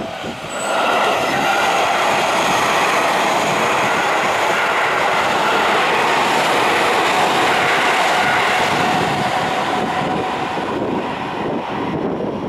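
Seibu Shinjuku Line electric train passing close by over a level crossing: a steady, loud rush of wheels on rail that comes up sharply about a second in and eases off near the end.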